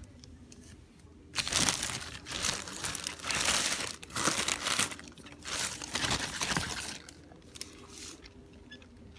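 Crinkling and rustling of plastic as fruit is handled in a wire fruit basket, in several loud bursts that start about a second and a half in and die down after about seven seconds.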